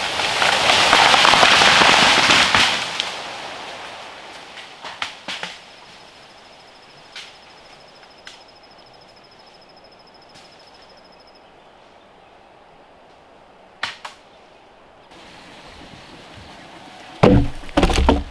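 A gust of wind rustles through bamboo leaves, swelling and fading over the first few seconds. A quiet stretch follows, with scattered light clicks and a thin, steady high-pitched trill lasting several seconds. Near the end come several heavy knocks of a wooden log being handled on the ground.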